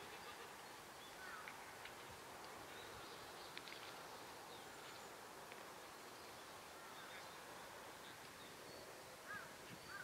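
Near silence: faint steady background hiss with a few faint, distant shouted calls, one about a second in and more just before the end.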